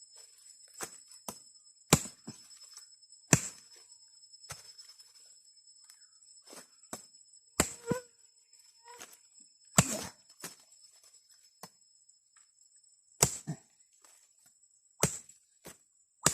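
A blade chopping into a hard woody vine: about seven sharp strikes at irregular gaps of one to four seconds, with lighter knocks between. A steady high drone of insects runs underneath.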